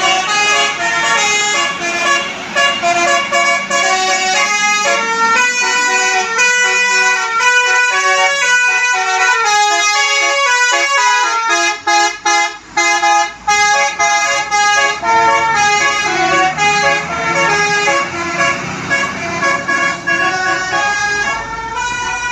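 Indonesian bus 'telolet' musical air horn playing a quick tune of short stepped notes, with runs of notes falling in pitch about halfway through and a few brief breaks between phrases.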